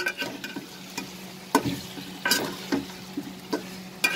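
Spatula scraping and stirring chicken pieces, potatoes and spice powders in a metal pot, in a few short irregular strokes over a soft frying sizzle.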